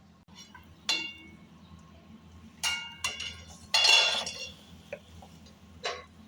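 Metal utensil clinking against a metal karahi pan: several separate ringing clinks and one longer scrape about two-thirds of the way in, as the curry is stirred or served.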